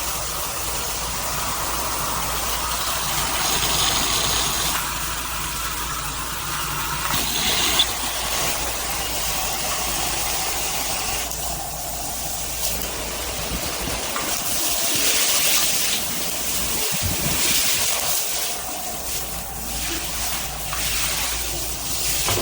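Water spraying from a 2-in-1 handheld and rain shower head: a steady rushing hiss whose tone shifts several times as the spray changes.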